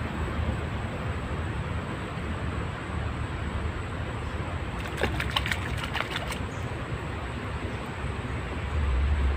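Water trickling and sloshing steadily, with a short run of sharp clicks about five seconds in.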